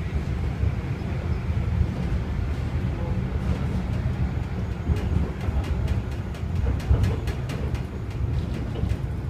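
Tram running along its rails, a steady low rumble with a run of sharp clicks and rattles from about three and a half seconds in.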